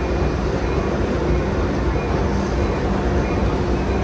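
Moving excursion passenger train heard from aboard: a steady, loud rumble of the cars rolling on the rails with a low drone underneath.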